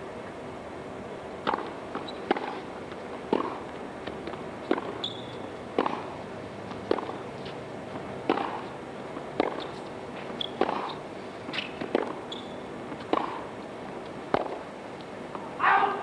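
Tennis rally: sharp racket strokes and ball bounces about once a second for a long exchange, with a few brief sneaker squeaks on the court. A short burst of noise comes just as the point ends, which the rally closes on a slight mishit.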